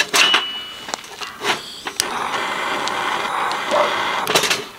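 Handheld gas torch lighter: a few clicks as it is worked, then a steady hissing flame from about two seconds in that cuts off just before the end, as it is used to light a camping stove.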